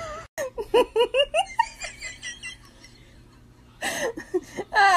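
A person laughing in a quick run of short bursts, quieter for about a second, then laughing again near the end.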